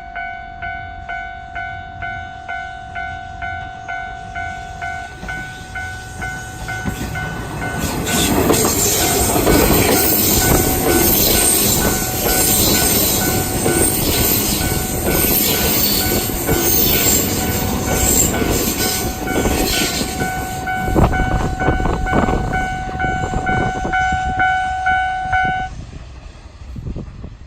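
Japanese level-crossing warning bell ringing about twice a second as a JR 117 series electric train passes over the crossing, its wheels clattering in a steady rhythm over rail joints for roughly a quarter of a minute. The bell stops near the end as the train clears.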